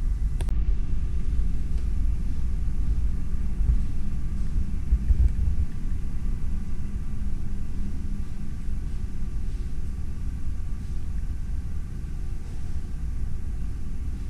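Steady low rumble with a faint steady hum, the machinery and ventilation noise of a cruise ship's interior, with a single sharp click about half a second in.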